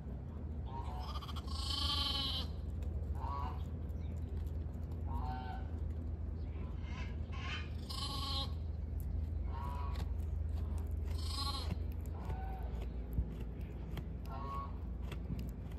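Sheep bleating: about a dozen short, high calls, one every second or so, over a steady low rumble.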